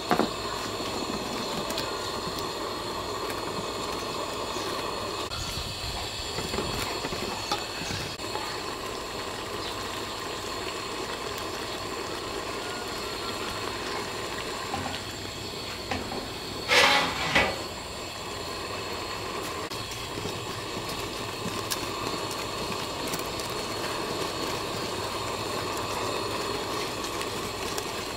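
Steady hissing of the stove under a pot of simmering coconut-milk curry, with a metal ladle stirring in the stainless-steel pot. About two-thirds of the way through comes a brief loud clatter.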